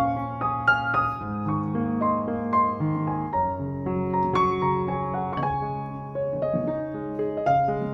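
Background piano music: a melody of quick notes over held low notes.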